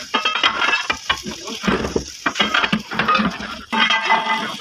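Irregular metallic clinking and knocking, many short sharp strikes of metal on metal.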